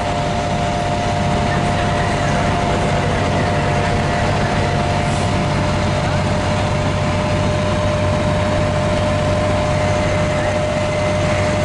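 Fire engines' diesel engines running steadily at a working fire, with a constant high whine over a low rumble.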